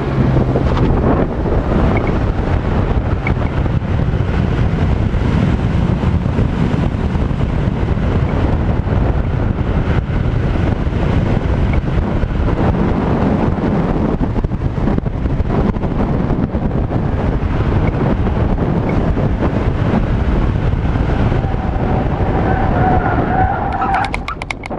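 BMW E46 M3's S54 straight-six running hard through an autocross run, with tyre noise throughout. Near the end the tyres squeal as the car slides off the course onto the grass, and the engine note drops away.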